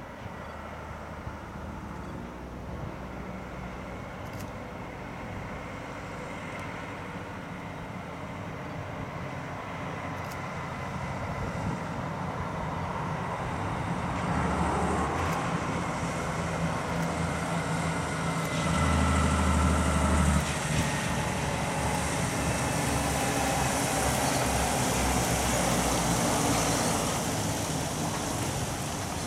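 Loaded Kenworth log truck's diesel engine running as the rig approaches, growing steadily louder and loudest a little past the middle. Later a hiss of tyres on the wet road swells as the truck goes by.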